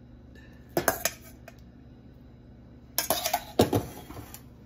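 Kitchen utensils clinking and clattering against a stainless steel skillet and a metal strainer bowl, in a short burst about a second in and a longer one around three seconds in.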